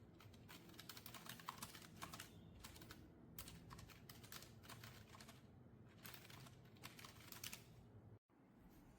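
Fast, continuous typing on a Logitech low-profile mechanical keyboard: a quick, irregular run of faint key clicks. The sound drops out for an instant near the end.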